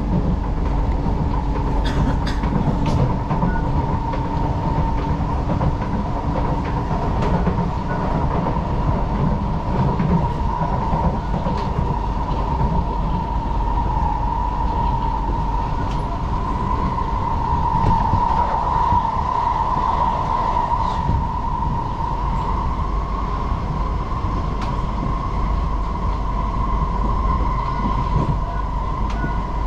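Singapore MRT train running on above-ground track, heard from inside the car by the doors: a steady low rumble of wheels on rail with a steady high whine that swells about two-thirds of the way through, and a few sharp clicks a couple of seconds in.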